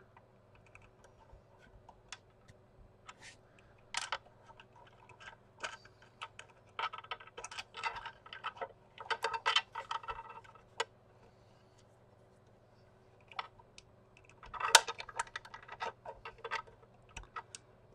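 Clicks, taps and rattles of a fragrance dispenser's hard plastic casing and small internal parts being handled and worked apart by hand. They come in scattered bursts, busiest in the middle and again near the end.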